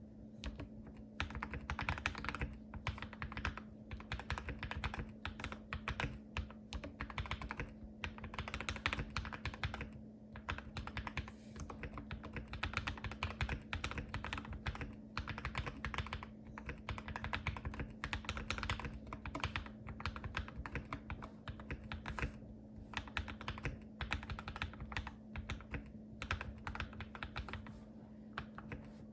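Typing on a modded Keychron K2 mechanical keyboard: aluminium frame, case foam, PCB switch pads, and lubed KTT Kang White V2 linear switches under GMK-style keycaps. The keys clack in quick runs broken by short pauses.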